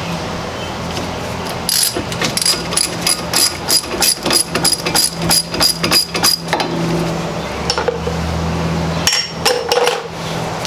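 Hand socket ratchet clicking in a quick run, about four or five clicks a second, as the brake caliper bolts are turned out; a few metal knocks follow near the end. A steady low hum runs underneath.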